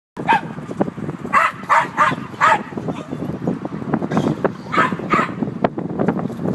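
Dogs barking excitedly in quick clusters of short barks, aggressively at a remote-control car, over a continuous rough noise underneath.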